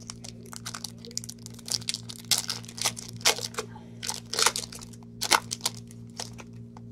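Foil wrapper of a Bowman Chrome baseball card pack being torn open and crumpled by hand, a run of irregular crackles and rips, busiest in the middle of the stretch.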